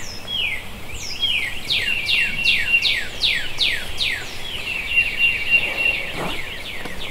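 Birds calling in bushland: a run of quick high whistles, each sweeping downward, about two or three a second, over a steady high trill.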